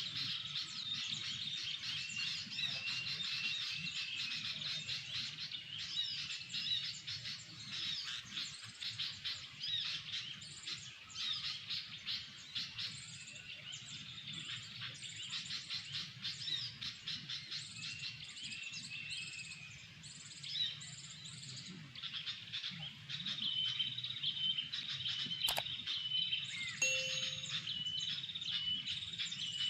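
Bird song with dense, rapid chirps and short repeated whistles all through, with a single sharp click about 25 seconds in.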